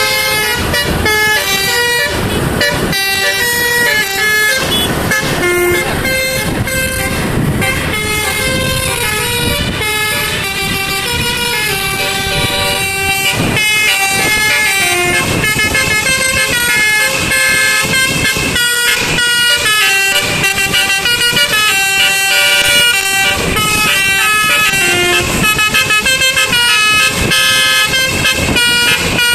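Basuri 'telolet' musical air horn playing a fast tune of short, stepping notes, over the low rumble of heavy-vehicle engine and road noise.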